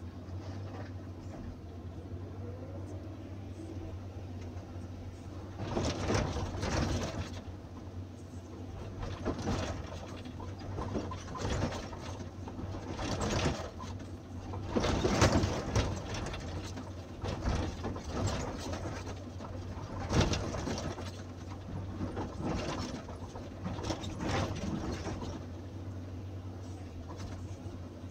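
Excavator's diesel engine running steadily, heard from inside the cab, with repeated louder surges of noise from about six seconds in as the bucket digs into a pile of crushed limestone.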